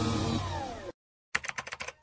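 Logo-animation sound effects: a humming, machine-like whir with a falling whine that cuts off just under a second in, then after a short gap a rapid run of keyboard-typing clicks, roughly a dozen a second.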